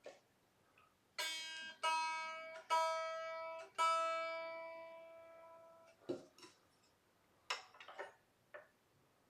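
A single string on a Squier Jagmaster electric guitar, unplugged, is plucked four times at the same pitch to check its tuning after a saddle-height adjustment, the last note ringing out and fading. A few small clicks and knocks follow.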